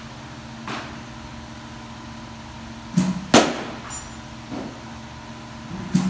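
Sharp cracks and knocks of a bat hitting balls in batting practice: a faint knock about a second in, two loud cracks less than half a second apart about halfway through, another faint knock, and a further pair of cracks at the very end.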